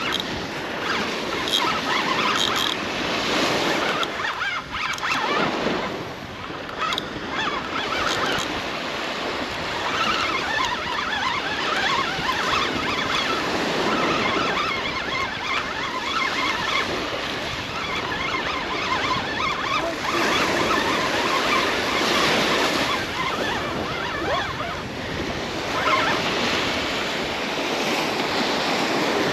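Small surf waves breaking and washing on the beach, with wind buffeting the microphone; the wash swells and eases every few seconds.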